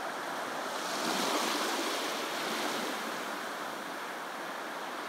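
Sea waves washing onto the beach: a steady surf hiss that swells about a second in and then eases off.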